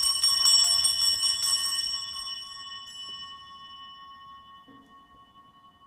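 Altar bells rung at the elevation of the chalice during the consecration. A quick, shaken peal of small bells lasts about a second and a half, then the ringing dies away slowly over the next few seconds.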